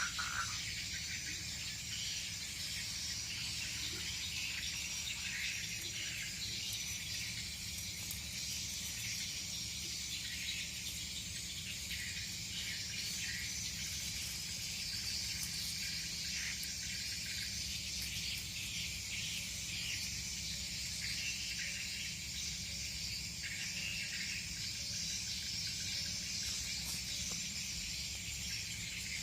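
Insects, crickets among them, chirping steadily in a continuous high-pitched chorus, over a low steady rumble.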